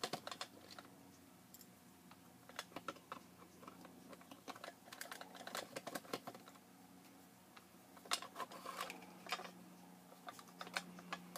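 Faint clicks and taps of a hand screwdriver backing out small screws from a plastic floodlight housing, with plastic parts knocking as they are handled, coming in small clusters. A steady low hum runs underneath.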